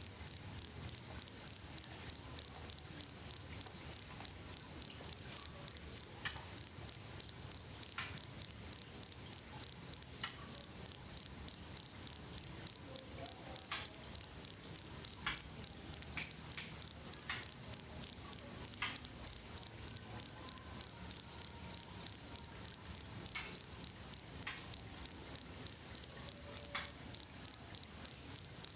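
Cricket chirping steadily: one high-pitched pulsed call repeating evenly, about three chirps a second, without a break.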